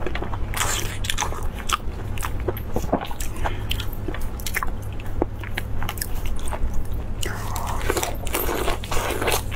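Close-miked eating sounds: irregular wet bites, chewing clicks and crunches from lamb sausage and crisp lettuce leaf, turning into denser crunching near the end as a mouthful of lettuce is chewed.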